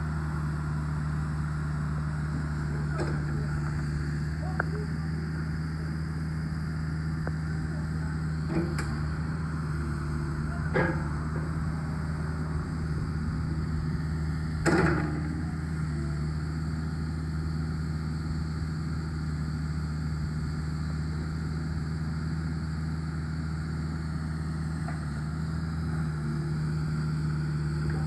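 Hanix H55DR mini excavator's diesel engine running steadily while the boom, arm and bucket are worked, with a few sharp knocks, the loudest about 15 seconds in.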